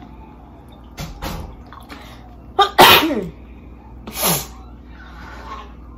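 A woman sneezing twice, the first sneeze about three seconds in the louder, with a sharp intake just before it.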